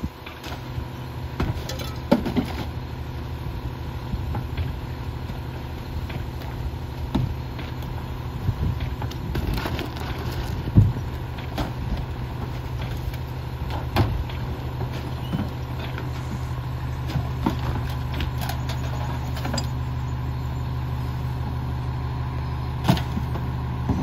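Autocar McNeilus rear-loader garbage truck's engine running at a steady speed, with repeated thuds and clatters as bags and bulk items are thrown into the rear hopper. The loudest bang comes near the middle.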